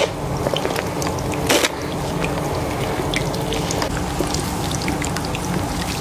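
Water running and splashing into a wash basin during a head-spa hair rinse, with many small drips and one brief louder splash about one and a half seconds in.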